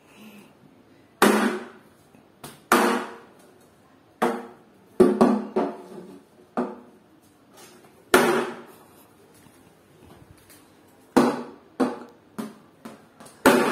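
Hollow plastic knocks from a toy cricket bat striking the tiled floor and a plastic ball, about a dozen at irregular intervals. Each knock rings briefly and echoes off the bare walls.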